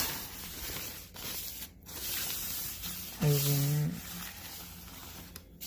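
Tarp fabric rustling and crinkling as it is handled and shifted. A short drawn-out hesitation sound of a man's voice comes a little past three seconds in.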